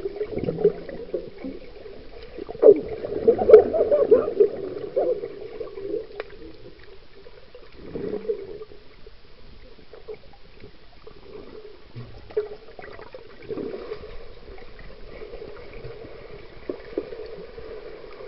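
Muffled underwater sound picked up by a submerged camera: swimmers' bubbles and water movement, with scattered knocks and a louder stretch of bubbling about three to five seconds in.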